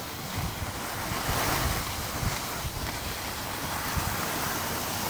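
Skis sliding and scraping over packed snow on a downhill run, a steady rushing hiss, with wind buffeting the microphone in low rumbles.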